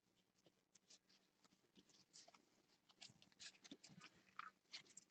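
Near silence with faint, scattered soft flicks and rustles of trading cards being handled and sorted, coming more often in the second half.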